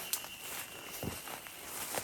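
Footsteps of hikers walking on a forest trail: scattered scuffs and crunches, with one heavier step about a second in.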